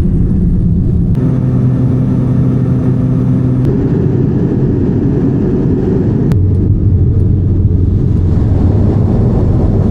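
A loud engine running steadily, a low drone whose pitch shifts to a new level a few times. It starts and stops abruptly.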